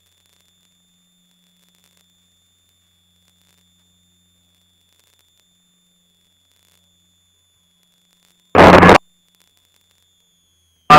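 Near silence with a faint steady high electronic whine, broken near the end by a half-second burst of multi-engine airplane cabin noise. The burst cuts in and off abruptly, as when the intercom audio feed briefly opens.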